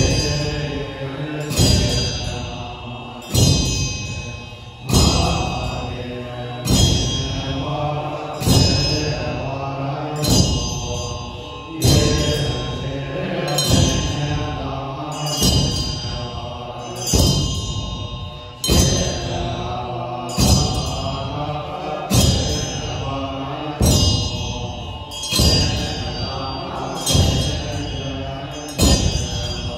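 Voices chanting Buddhist prayers in unison, with a ritual drum and cymbals struck together about once every 1.7 seconds in an even beat. Each stroke has a low thud and a metallic ring that carries on until the next.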